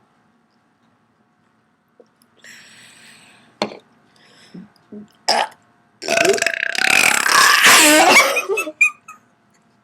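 A person belching: after a breath and a few short sharp sounds, one long loud belch starts about six seconds in and lasts about two seconds, wavering in pitch.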